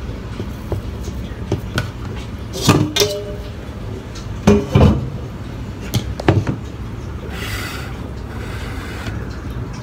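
Plastic dough scraper cutting through bread dough and knocking on the countertop, a few sharp taps in pairs, over a steady low hum.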